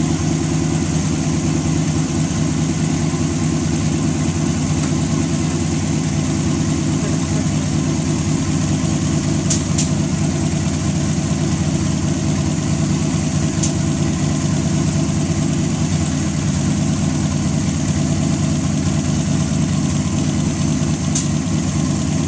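Fuel-injected 320 cubic-inch Buick straight-eight engine idling steadily, with a few light clicks over it.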